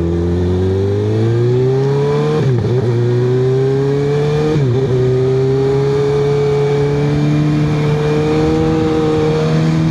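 Kawasaki ZX-6R 636 inline-four engine running through an M4 GP19-style exhaust with the Q3 Stage 2 baffle fitted, revving up under acceleration. It shifts up twice, about two and a half and four and a half seconds in, then settles into a steady cruise. The baffle gives it a deep, street-friendly tone.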